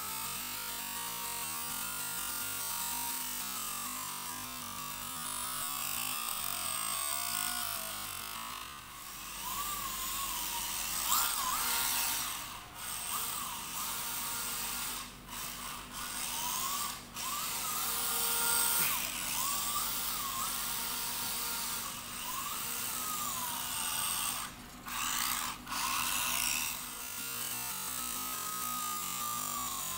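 Electric motors of several 1/24-scale WLtoys A252 RC drift cars whining, rising and falling in pitch as they are throttled through the corners, over a steady hiss. The sound drops out briefly several times midway.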